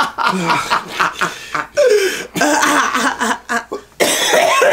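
A man and a woman laughing and coughing, the coughs brought on by a big hit of vape vapour.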